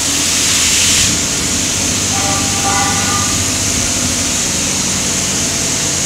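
Drilling rig floor machinery running: a steady low hum under a loud, broad hiss. The hiss swells briefly in the first second, and faint steady tones sound for about a second and a half around the middle.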